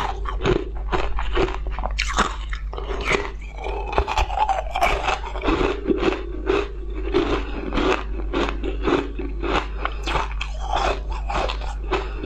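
Close-miked crunching and chewing: a person biting into and chewing a crunchy ball-shaped sweet, with rapid crisp crunches throughout, over a steady low hum.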